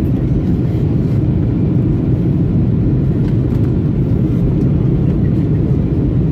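Steady low rumble of engine and airflow noise heard inside the cabin of an Airbus A321 airliner on its approach to landing.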